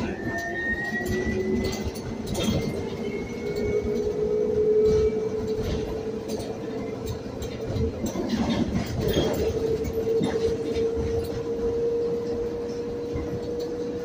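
Electric drive whine of a Proterra Catalyst E2 battery-electric bus (UQM traction motor through an Eaton two-speed transmission), heard from the cabin. It rises in pitch over the first few seconds as the bus picks up speed, then holds steady. Loose rattles and knocks from the cabin and road rumble run under it.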